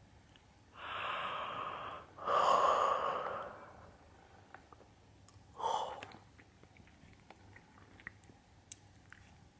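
Close-miked breathy exhales into the microphone, ASMR fogging: two long airy 'haa' breaths of about a second each, the second louder, then a short one near six seconds, with faint clicks in between.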